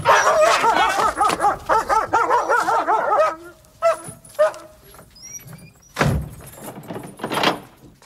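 German Shepherd barking fast and continuously for about three seconds, then a few more single barks. Two heavy thumps follow near the end.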